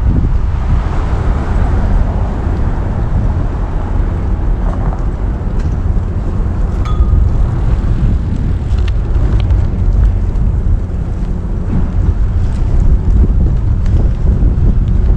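Heavy wind buffeting on the microphone of a moving ride, over a steady low rumble.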